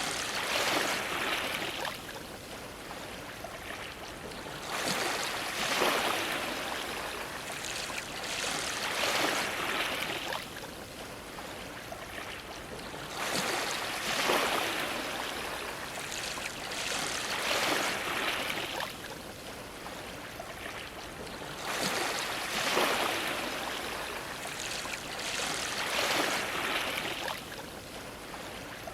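Ocean waves washing against a dock, each wave a swell of splashing water that comes every three to five seconds.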